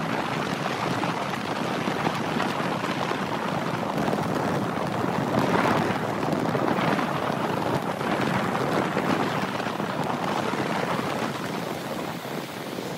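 A car driving on a rain-soaked highway: a steady hiss of tyres and spray on the wet road, swelling a few times around the middle.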